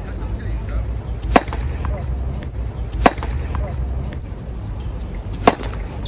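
Tennis racket striking a ball three times with sharp cracks, about one and a half to two and a half seconds apart, over a steady low background rumble.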